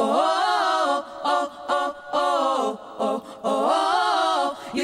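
Female vocal group singing live into handheld microphones, several voices together and apparently unaccompanied, in short repeated phrases that rise and fall in pitch, each about a second long with brief gaps between them.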